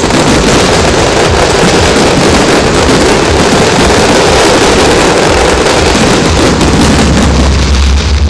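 Fireworks finale: a continuous barrage of bursts so dense and loud that it runs together into one steady din with no single bang standing out. It stops abruptly at the very end.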